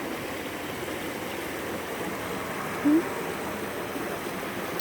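Creek water running steadily over rocks. A brief rising voice sound cuts in about three seconds in.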